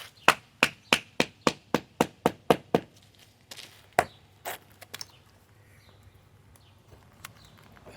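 Repeated sharp knocks of a tool striking a chipped concrete corner: a quick run of about nine blows, roughly three a second, then three more, slower and spaced out, before stopping.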